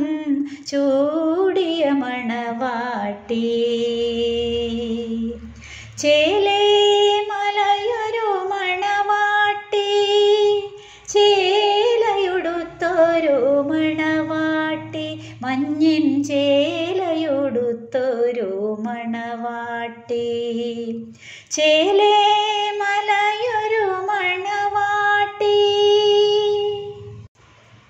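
A woman singing a slow Malayalam song, holding long notes with vibrato and pausing briefly between phrases, over a soft, low instrumental backing.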